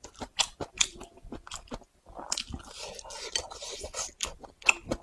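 Close-up chewing and biting of a person eating: a quick run of wet mouth clicks and soft crunches, with a longer rustling stretch in the middle.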